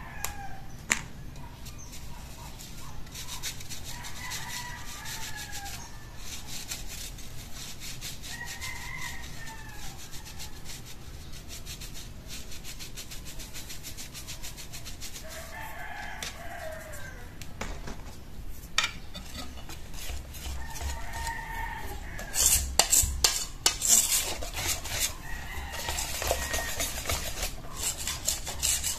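A rooster crows repeatedly, about every five seconds. Under it a mesh sieve rasps and taps as dry ingredients are shaken through it into a stainless steel bowl, louder over the last several seconds.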